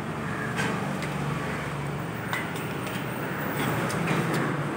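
Road traffic: a motor vehicle running close by with a steady low hum, swelling a little near the end as it passes.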